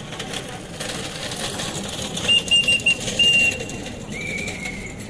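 High whistled notes: a quick run of short blasts, then a longer one, then a lower note that falls slightly. Under them runs the steady noise of a crowd walking past.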